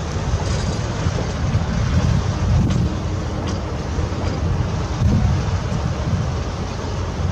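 Wind buffeting the microphone outdoors: a loud, uneven low rumble with no clear engine pitch.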